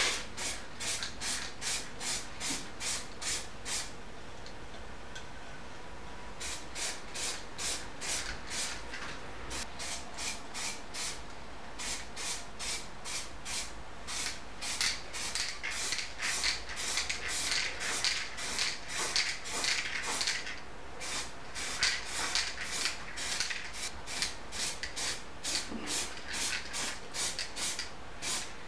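Aerosol can of heat-resistant exhaust paint spraying in short hissing spurts, about three a second, with a pause of a couple of seconds a few seconds in.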